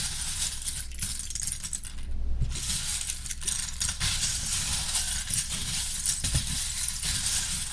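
Many small plastic LEGO pieces clinking and clattering together in a dense, continuous rattle, with a short break about two seconds in.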